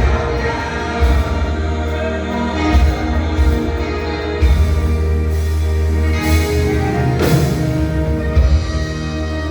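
Instrumental church band music: held keyboard chords over a pulsing bass line, with a couple of cymbal crashes in the second half.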